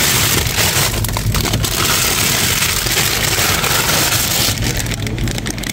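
Plastic bags of frozen chips crinkling and rustling as a hand sorts through them, over a steady low hum.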